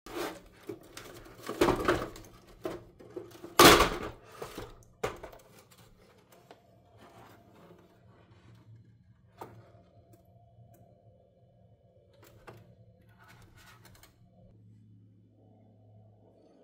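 Hard plastic knocks and clatter as the cut-off top of a Jaguar F-Type headlight is pulled away from its housing, loudest in the first four seconds, then lighter handling sounds.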